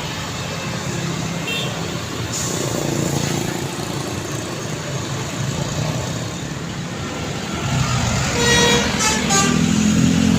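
Road traffic with a heavy vehicle's engine running, then about eight seconds in a multi-tone 'telolet' bus air horn starts playing short pitched notes that change in quick succession.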